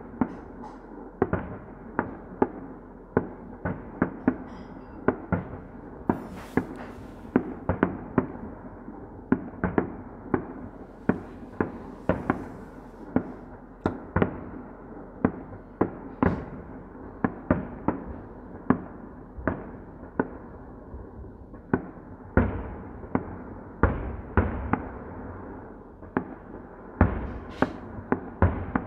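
Fireworks display: aerial shells bursting in quick succession, sharp bangs about one or two a second, each trailing off in an echo. Brief high hissing crackle about six seconds in and again around twelve seconds, and deeper, heavier booms in the last few seconds.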